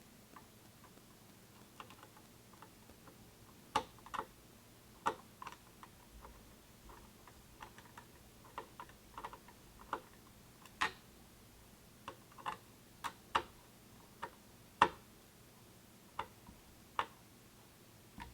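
Irregular light clicks and taps of computer parts being handled and fitted, about two dozen sharp ticks spaced unevenly, one louder click about three quarters of the way through.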